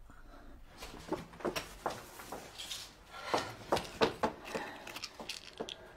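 A door being opened, followed by a run of clicks, knocks and rustling as people move about.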